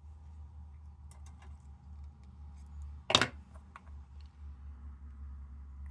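Light metallic clicks and clinks from handling the parts of a tin camper lantern, with one sharper, louder knock about three seconds in. A low steady hum runs underneath.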